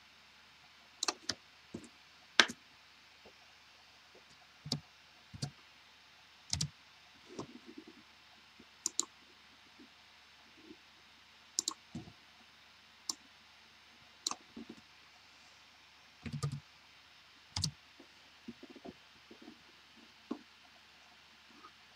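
Computer mouse clicks and keyboard keystrokes while working in CAD software: irregular sharp clicks, several in quick pairs like double-clicks.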